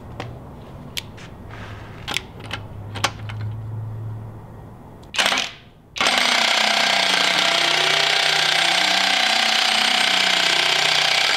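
Light metallic clicks as rocker arms and the rocker shaft are worked into the head, then a short burst and about five seconds of steady running from a pneumatic impact wrench, which cuts off abruptly. It is turning the engine over so the rockers line up with the cam lobes.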